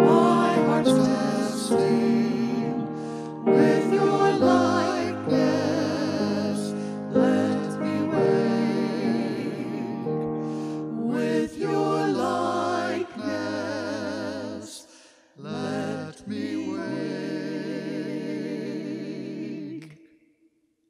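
Small mixed choir of men and women singing the closing line of a hymn, the final chord held and then stopping about 20 seconds in.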